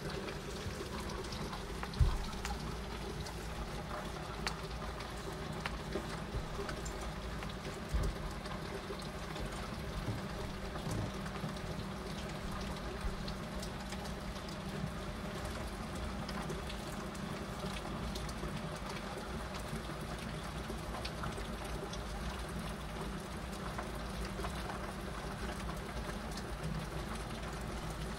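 Rain falling steadily, with a few sharp taps among it, the loudest about two seconds in and another about eight seconds in.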